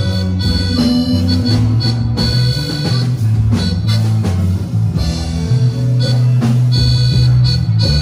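Dance music played loud through PA loudspeakers, a stepping bass line under a sustained melody.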